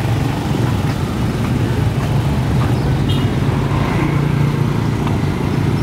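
Motor scooter engines running in slow street traffic: a steady low drone.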